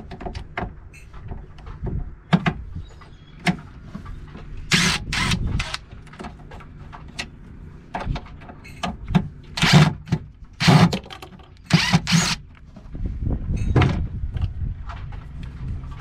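Yellow DeWalt cordless impact driver run in several short bursts, backing out the screws of a magnetic cabinet-door catch, with small clicks and handling knocks in between.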